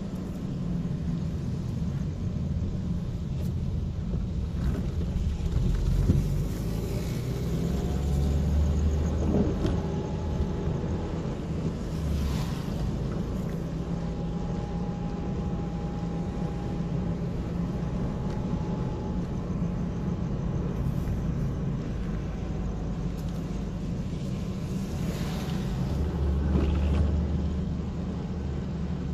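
Road noise inside a moving car on a wet road: a steady low rumble of engine and tyres, growing louder for a few seconds about a quarter of the way in and again near the end, with a couple of brief hissing swells.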